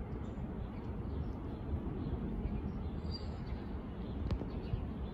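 Steady low rumble of a jet airliner flying high overhead.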